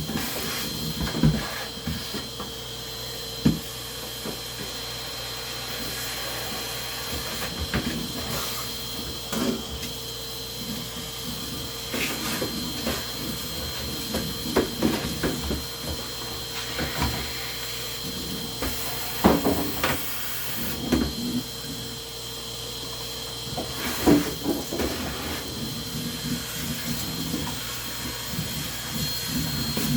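Scattered knocks and clatter of things being handled, over a steady hum.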